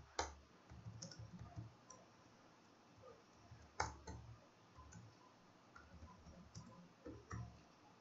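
Faint computer keyboard typing: scattered, irregular key clicks, one louder click about four seconds in.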